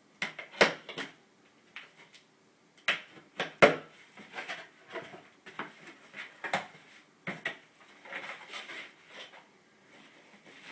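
Cardboard box and packaging being opened and handled: irregular sharp knocks and clicks, two louder ones about half a second and three and a half seconds in, with rustling in between.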